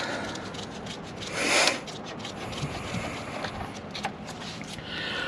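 Hand work on the starter's cable terminals: small metal clicks and taps, with one louder scrape or rub about a second and a half in.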